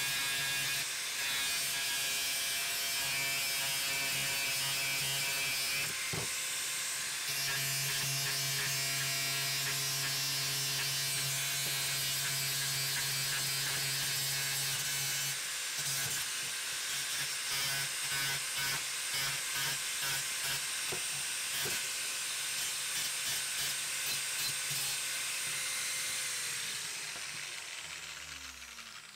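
Angle grinder with a thin cutting disc cutting through the metal bracket of a stock motorcycle tail, the motor running at full speed. In the second half the cut comes in short repeated passes. Near the end the grinder is released and the motor winds down, its pitch falling.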